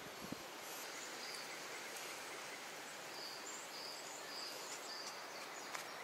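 Quiet outdoor ambience: a steady faint hiss with a few short, high chirps in the background, mostly in the middle of the stretch.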